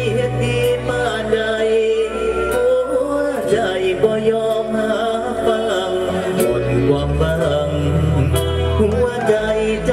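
Live Isan mor lam band music over loud speakers, with a bass line, drums and a melody line, and some singing over it.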